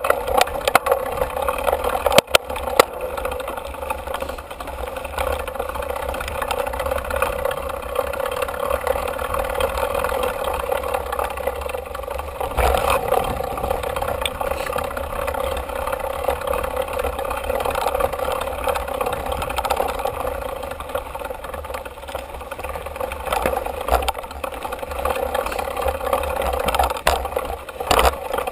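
Mountain bike rolling fast over a dirt trail, heard from a camera on the handlebars: a steady rushing noise of tyres and air, with rattles and knocks from the bike over bumps, sharpest in the first few seconds and again near the end.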